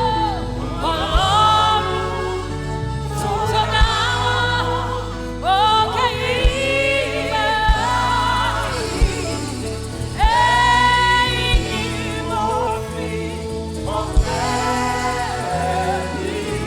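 Live gospel worship singing by voices with a choir, backed by a band. Long held notes with vibrato ride over a steady bass, with occasional sharp drum hits.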